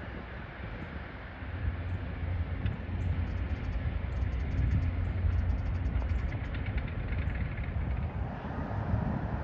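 A steady low rumble with a noisy haze over it, as of distant engines or machinery outdoors, with a few faint ticks in the middle.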